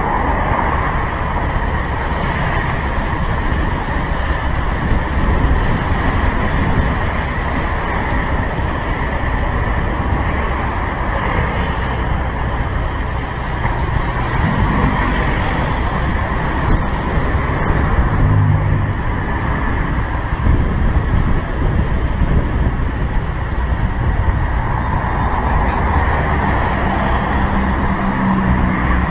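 Motor scooter riding in city traffic, heard from a helmet camera, with wind rushing over the microphone. Nearby cars and motorbikes pass with a brief low hum about two-thirds of the way in and again near the end.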